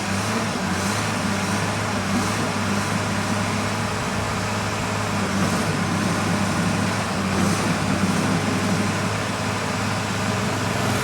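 Excavator's diesel engine running steadily, with a few short hisses breaking in over it.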